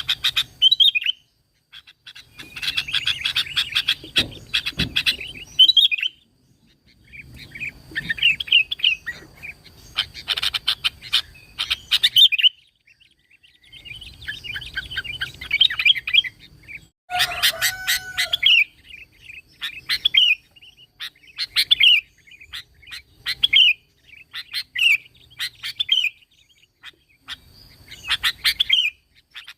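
Sooty-headed bulbul (kutilang) singing energetically: bursts of quick, rippling whistled notes, phrase after phrase with short pauses between.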